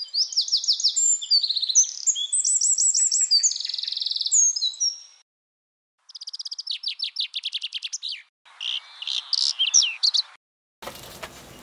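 Songbirds singing fast, varied high trills and chirps in three separate stretches, each cut off abruptly with a short silence between. A steady hissing noise with small ticks comes in near the end.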